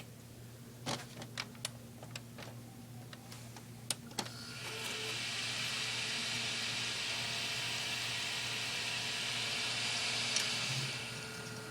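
Desktop computer powering up: a few clicks, then about four seconds in its fans spin up with a steady whoosh of air, largely from the old ATI Radeon graphics card's fan, which settles to a quieter whir near the end.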